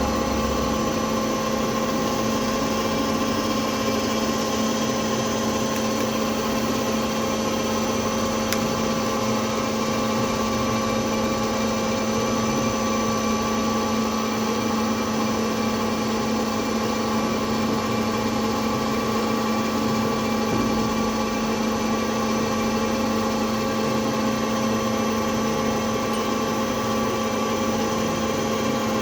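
CNC milling machine running steadily: a constant mechanical hum with several fixed whining tones over a noisy hiss, without change in speed or load.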